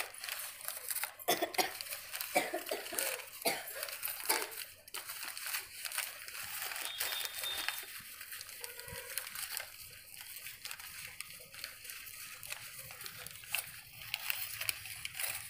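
Crumpled ruled notebook paper rustling and crinkling as hands dig through packing material, a dense crackle that is loudest and busiest in the first five seconds or so, then softer with a few sharper crinkles later.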